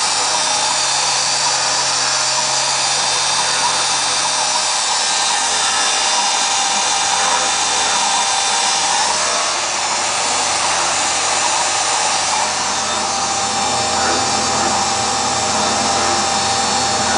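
X2 mini mill, converted to CNC with a modified treadmill-motor spindle turning at about 5,000 rpm, milling a metal part with an end mill under flood coolant: a steady, high drill-like whine of spindle and cutter. The cutting note shifts slightly about nine seconds in.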